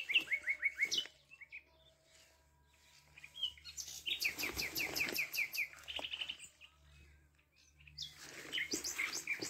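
Nightingale singing: three phrases of rapid repeated whistled notes, a short one at the start, a longer one about four seconds in, and another near the end, with pauses between.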